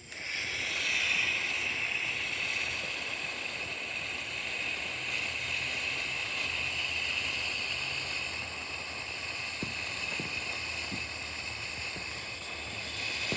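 A firework fountain spraying sparks with a steady hiss that starts abruptly and holds evenly, with a few faint pops about ten seconds in.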